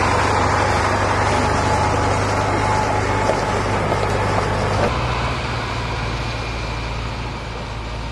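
Farm tractor's diesel engine running steadily as it pulls past and away. Its note shifts about five seconds in, then it gradually fades.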